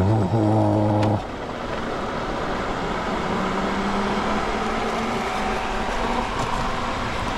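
Harris Proforce variable speed pool pump running while it primes, filling its strainer basket with water. A loud low hum is heard for the first second or so and stops abruptly, then the pump runs steadily.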